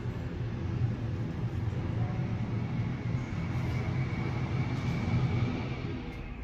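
Jet aircraft engines running: a steady low rumble with a high whine that grows stronger in the second half, then changes suddenly near the end.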